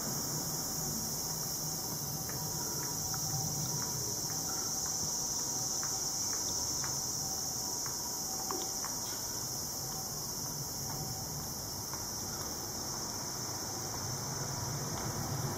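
Insects shrilling steadily in one continuous high-pitched drone, with a few faint clicks partway through.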